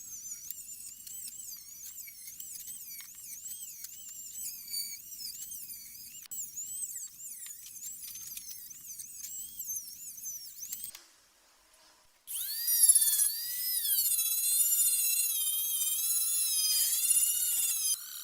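High-speed rotary tool whining, its pitch dipping and rising as it is pressed into and eased off the work. It stops for about a second near the middle, then runs again, louder.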